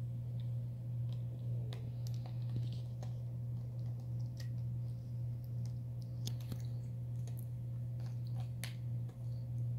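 Capuchin monkey chewing and handling a plastic lid: irregular small clicks and ticks, over a steady low hum.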